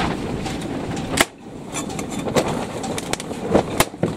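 A metal scraper prying and scraping a hot-glued wooden template off a painted fibreglass deck. There is a sharp snap about a second in, and a few more clicks near the end as the glue lets go.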